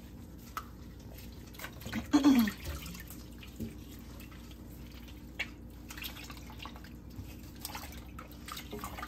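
Water dripping and splashing in a sink as raw chitterlings are rinsed by hand, with scattered small wet clicks. About two seconds in there is one brief louder sound that falls in pitch.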